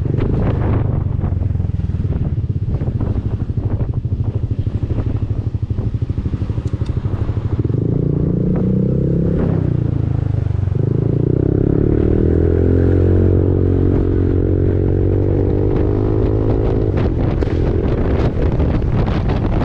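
Honda Forza 300 scooter's single-cylinder engine through an Arrow aftermarket exhaust, ridden with wind buffeting the microphone. Its pitch rises as it accelerates about eight seconds in, dips briefly around ten seconds, then rises again and holds a steady drone before easing off near the end.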